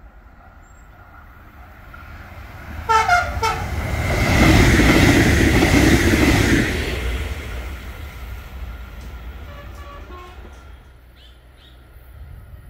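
EFE electric passenger train passing at speed: two short horn blasts about three seconds in, dropping slightly in pitch, then a loud rush of wheels on rail as the train goes by, fading away after the middle.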